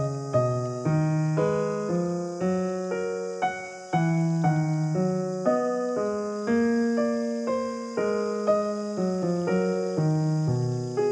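Background piano music: a gentle tune of struck chords and melody notes, each note starting sharply and fading.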